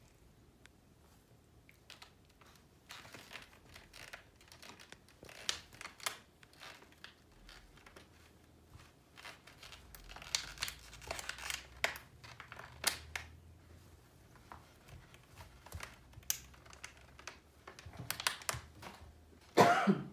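Sheepadoodle puppies chewing and batting a plastic water bottle: irregular crinkling and crackling in scattered bursts, with a short, louder burst near the end.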